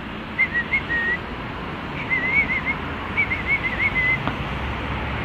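A high, wavering whistle in three short warbling phrases, each under a second, over a steady low background rumble.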